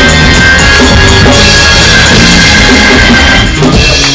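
Loud live church band music with a drum kit keeping a steady beat, easing off slightly near the end.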